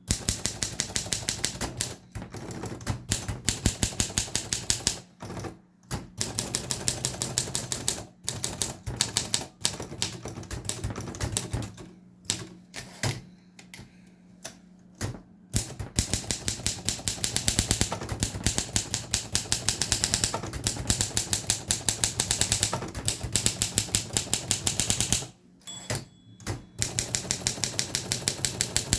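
1961 Olympia SM3 manual typewriter being typed on: runs of quick type-bar strikes with short pauses between words and lines. A brief bell ding sounds near the end.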